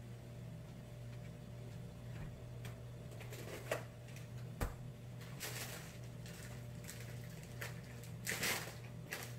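Quiet kitchen room tone: a steady low hum with a few faint knocks and rustles, the loudest rustle about eight and a half seconds in.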